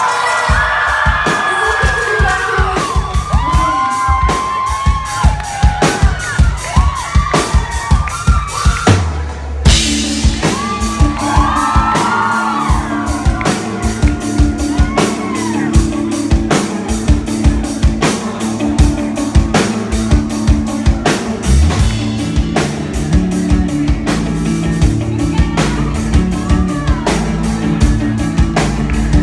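Live rock band playing: a woman singing over drums, electric guitars and bass. About nine seconds in the band drops out for a moment, then comes back in fuller, with a sustained guitar tone under the steady drum beat.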